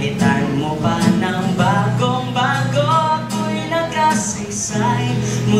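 A man singing in Tagalog into a microphone while strumming an acoustic guitar.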